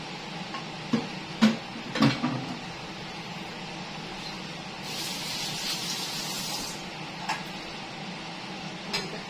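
A steady background hum, with three sharp knocks in the first two seconds, a hiss lasting about two seconds near the middle, and two fainter knocks later.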